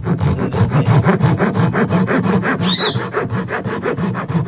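Japanese handsaw cutting through a small piece of wooden trim with fast, even back-and-forth strokes. A brief high chirp sounds about halfway through.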